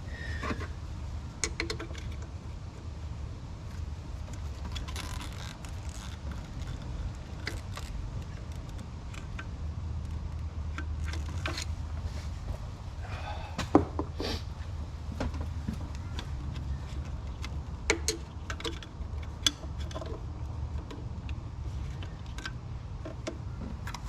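Scattered small clicks and scrapes of a flathead screwdriver and hands working the locking tab of the alternator's plastic electrical plug, over a steady low rumble.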